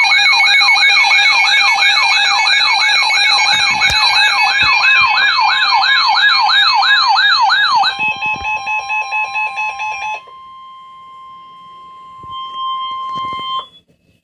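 Electronic emergency alert tones. A loud siren-like tone sweeps up and down about three times a second for about eight seconds, then changes to rapid pulsing beeps for about two seconds, then to a quieter steady single tone that cuts off just before the end.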